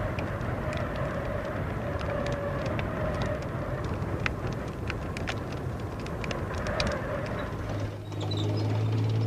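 Vehicle noise: a rumble with scattered sharp clicks and knocks. About eight seconds in it gives way suddenly to a steady low engine drone.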